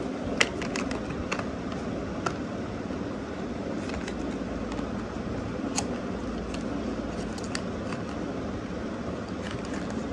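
Unboxing of a small electronics kit: scattered sharp clicks and taps of a cardboard box and the plastic parts inside it being handled, the loudest about half a second in, over a steady low background noise.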